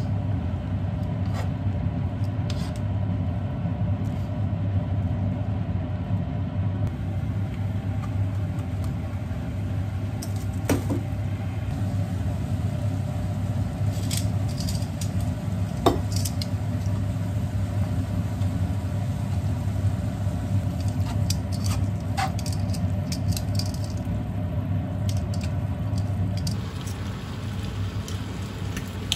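Spaghetti bubbling in a frying pan on a gas burner: a steady low rumble and sizzle, with a few light clinks of a utensil against the pan.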